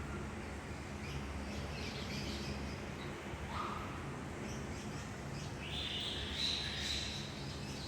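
Lovebirds chirping: scattered short high chirps, a lower call about three and a half seconds in, and a longer, denser twittering call starting a little before six seconds in. A steady low hum runs underneath.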